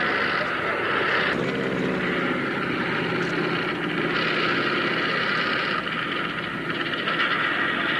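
Piston-engined propeller warbird running overhead, a steady drone that shifts in tone about a second and a half in and again about four seconds in.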